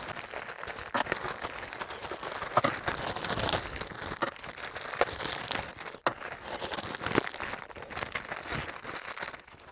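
Plastic packaging crinkling and rustling as the parts of a boxed anime figure are unwrapped by hand, with many small scattered clicks and crackles.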